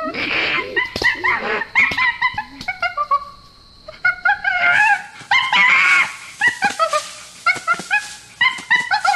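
An animal calling: a rapid series of short, high, yelping and whimpering cries, several a second, each rising and falling in pitch.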